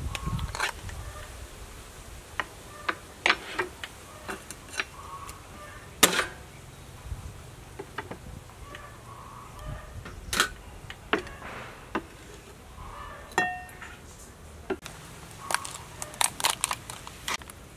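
Scattered sharp clicks and taps of cooked mud crab shell being handled: a metal spoon scraping the inside of the shell, and shell pieces knocking on a wooden board and a glass bowl. There is a quick run of clicks near the end.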